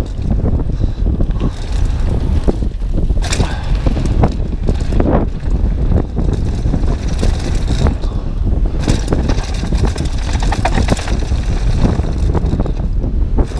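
Mountain bike riding fast down a dry dirt trail, heard from a helmet-mounted camera: tyres on loose gravel with frequent clattering knocks from the bike over bumps, under heavy wind rush on the microphone.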